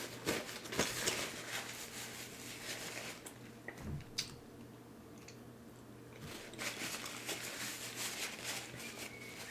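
A person chewing and biting into smoked turkey leg: scattered soft smacks and clicks, quieter for a couple of seconds in the middle.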